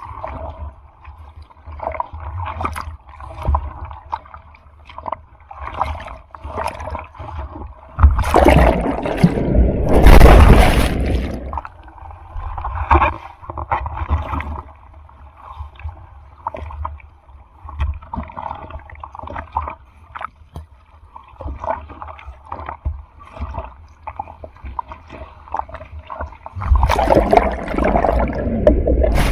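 Sea water close to the microphone, splashing and gurgling in many short splashes. Two loud rushes of breaking surf come through, one about eight seconds in lasting some three seconds, and another near the end.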